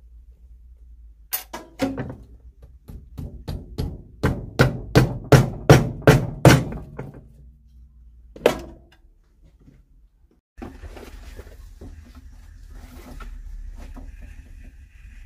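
Hammer blows on a shoe heel's new rubber top lift, the shoe held upside down on an iron last: about fifteen sharp knocks that come faster and louder, then one more a couple of seconds later. Near the end it gives way to a quieter workshop background with faint handling sounds.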